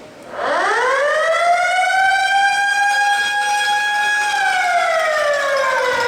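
Arena game siren winding up to a steady wail, holding, then slowly winding down near the end: the signal that ends a period of a hockey game.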